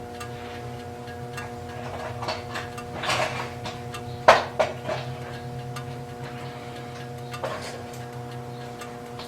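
A few sharp knocks, the loudest about four seconds in with two smaller ones just after, over a steady hum and faint scattered ticking.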